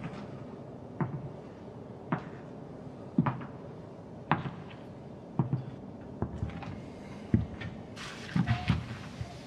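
Slow footsteps of hard-soled leather shoes on a railway carriage floor, one knock about every second, with a quicker cluster of knocks near the end.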